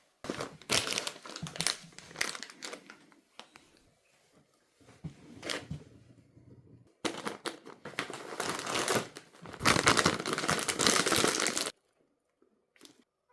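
A plastic snack bag crinkling in bursts as it is handled and opened. The longest, loudest stretch comes near the end and stops abruptly.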